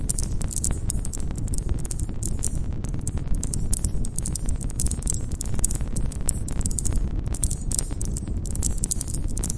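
Wood fire crackling and popping in a dense run of small snaps over a low steady rumble of the flames, with crickets chirping high in the background.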